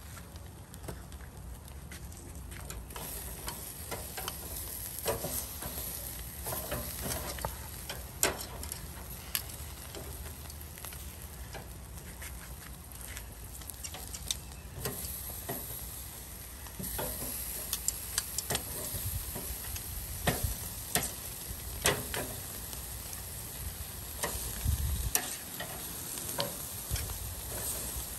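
Meat sizzling on a wire grill over charcoal, a steady hiss broken by many sharp crackles as fat drips and burns on the hot coals.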